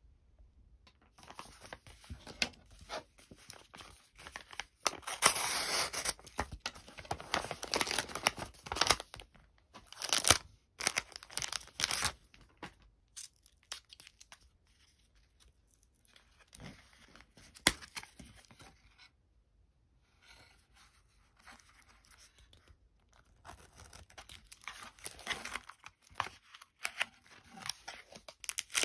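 Packaging being torn and crinkled by hand, in irregular bursts with short pauses. It is busiest in the first dozen seconds and picks up again near the end.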